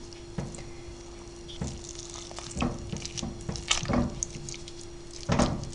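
Wooden spoon stirring and breaking up lumps of cottage cheese in hot milk in an enamel pot: irregular wet squelches and sloshes, over a faint steady hum. The curds are being heated until the milk separates into whey.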